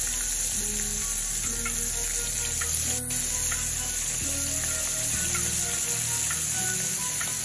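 Flour-coated chicken pieces frying in a pan of hot grease on high heat: a steady, even sizzle.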